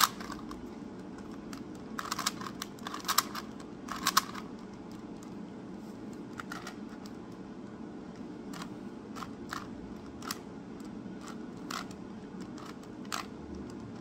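A Rubik's 3x3 cube being turned by hand, its plastic layers clicking as they snap round. There are quick runs of clicks in the first four seconds, then single clicks about once a second, over a steady low hum.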